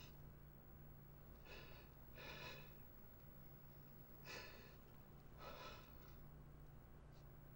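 A person's faint, uneven breathing: four soft breaths in two in-and-out pairs, as in quiet crying. A low steady hum lies underneath.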